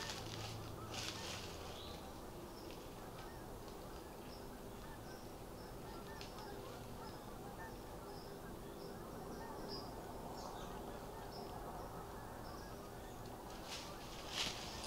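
A faint high chirp repeating about twice a second, with a few brief rustles near the start and near the end.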